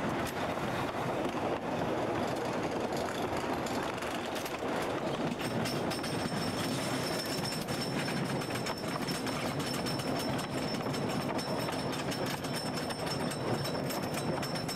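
Philadelphia Toboggan Company wooden roller coaster train climbing its chain lift hill: a steady mechanical clatter of the lift chain and wheels on the track, thick with rapid clicks.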